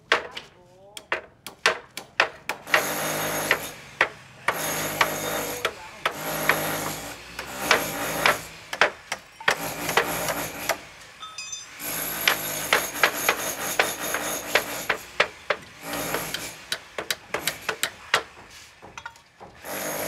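Hand tools knocking and scraping on bricks: quick sharp knocks, many in runs, alternating with longer rasping scraping strokes of a second or so each.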